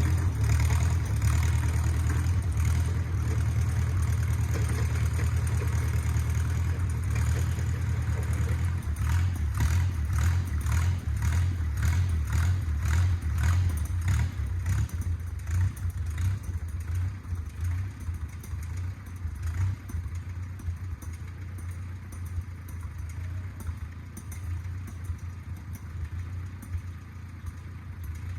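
Engine of a 1950s micro bulldozer running steadily. Partway through it picks up a regular clatter for several seconds, and then the sound grows gradually fainter toward the end.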